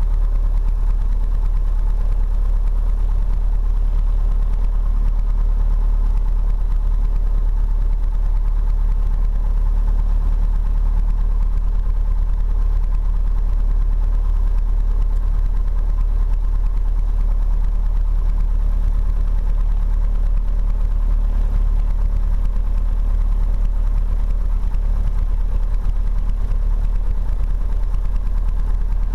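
Piper PA-28-140 Cherokee's four-cylinder Lycoming engine idling steadily, heard from inside the cockpit.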